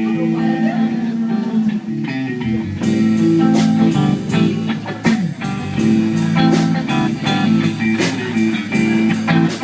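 Blues band playing the instrumental close of a song after the last sung line: guitar lines over bass, with the drum kit coming in strongly about three seconds in and keeping a steady beat.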